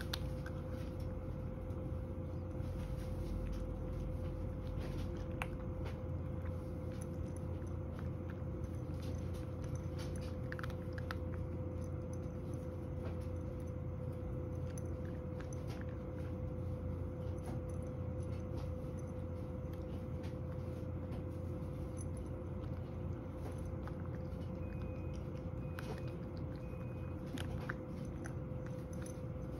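Domestic cat eating dry kibble from a bowl: scattered small crunches and chewing over a steady low hum.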